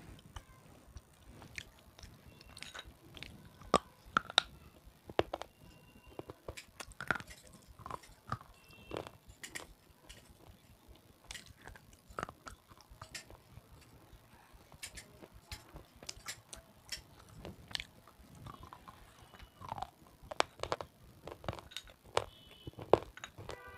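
Close-up crunching bites and chewing of red sileti, a crunchy snack, picked up by a clip-on microphone: irregular sharp crunches with quieter chewing between them.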